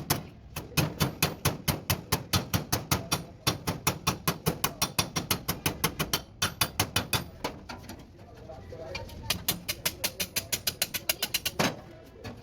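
Hammer blows on the sheet-metal body panels of a Mazda Titan T3500 truck cabin during panel beating. The blows come rapidly at about five a second, in several runs with short pauses between them.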